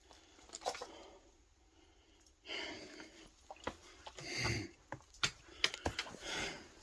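A hiker breathing hard while scrambling up over boulders, heavy breaths about every two seconds, with scattered sharp knocks and scrapes against rock.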